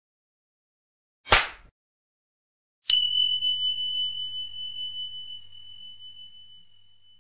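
Sound effects of a YouTube subscribe-button animation: a brief noisy hit about a second in, then a single high bell ding that rings down slowly over about four seconds as the notification-bell icon appears.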